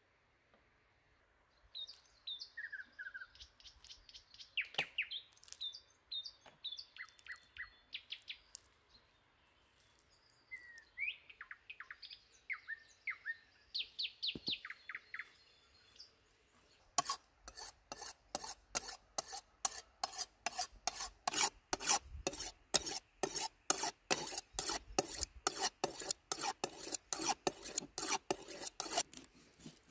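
Birds singing, short chirps and gliding calls, for the first half. About halfway through, a kitchen knife starts being drawn again and again along a honing steel, a rapid rhythmic scraping of about three strokes a second.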